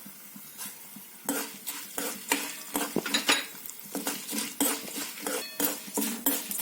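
A spoon stirring and scraping against a pan in short, irregular strokes, about two or three a second, as dal, mustard seeds and cumin fry in oil for a tempering.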